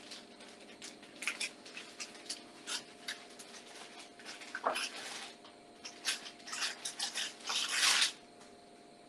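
Light clicks and rustling of things being handled on a kitchen counter, with a louder rustle near the end and a short falling whine about halfway through.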